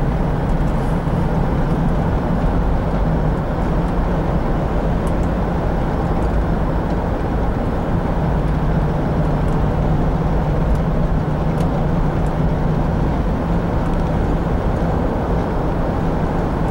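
Inside the cab of a 1997 Chevrolet S-10 Blazer driving at a steady pace: the 4.3-litre V6 drones evenly under road and tyre noise.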